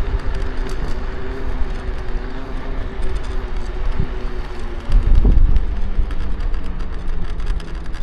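Electric scooter riding, its frame and parts crackling and creaking heavily in rapid irregular ticks over a steady motor hum and low wind rumble. A louder jolt a little after five seconds.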